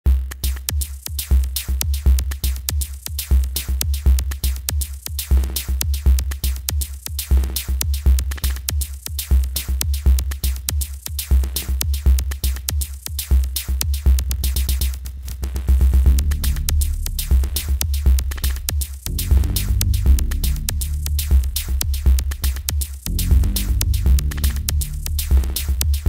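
Electronic instrumental music with a steady drum-machine beat and deep bass; a fuller bass line comes in a little past halfway.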